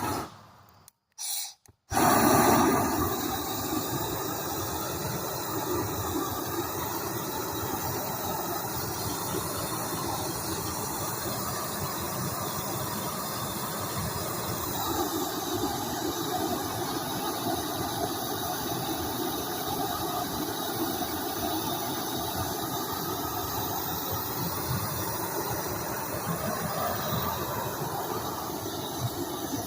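Gas torch flame burning: a couple of short sounds, then the flame starts with a louder burst about two seconds in and carries on as a steady hiss.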